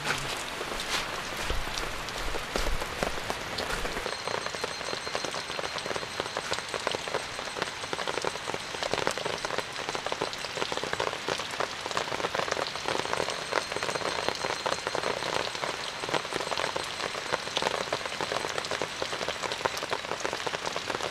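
Heavy rain falling steadily, a dense patter of countless drops. From about four seconds in, faint high insect calls run on underneath.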